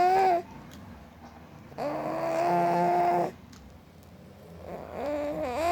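A man snoring: loud, pitched snores on each breath, about every three seconds. One ends just after the start, a longer one fills the middle, and another begins near the end.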